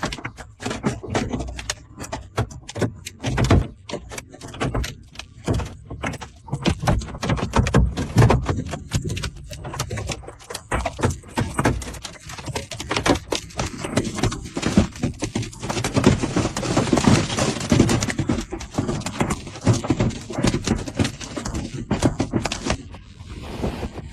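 Large hailstones pelting hard surfaces in a fast, irregular clatter of sharp knocks and clicks, thickening into an almost continuous pounding past the middle.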